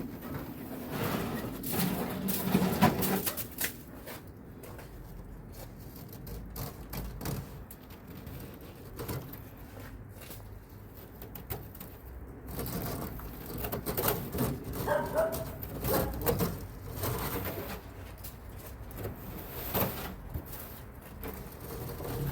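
Snow being cleared off a car by hand: irregular scraping and brushing strokes, with louder stretches near the start and in the second half.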